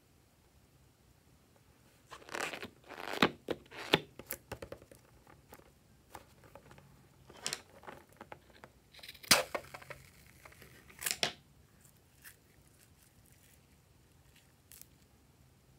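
Scissors snipping open a rubber balloon, with crinkling as the balloon is handled: short crisp snips in two clusters, about two seconds in and about nine seconds in, quiet in between.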